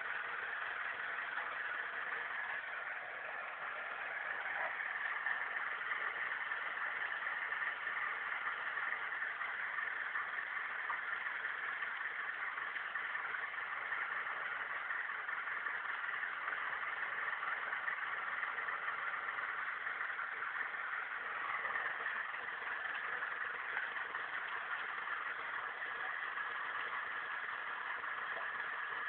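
Landini 95 tractor's diesel engine running steadily, with the sound a little louder from about four seconds in.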